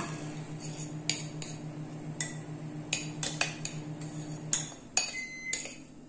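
A glass bowl clinking and scraping as moistened flaked corn flour is pushed out of it into another bowl. Under it a microwave oven hums steadily, stops about four and a half seconds in, and a beep follows, signalling the cooking time is up.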